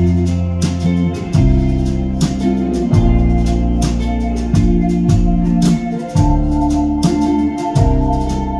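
A live rock band playing an instrumental passage: electric guitars, bass guitar, a drum kit keeping a steady beat, and sustained keyboard chords.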